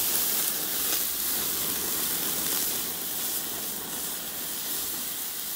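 Merguez sausages sizzling on a charcoal barbecue grill over flaring flames: a steady hiss with faint crackles here and there.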